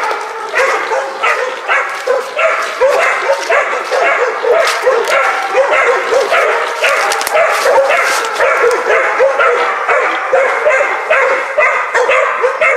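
Several young hog dogs barking over one another without a break, several barks a second, as they bay a cornered hog.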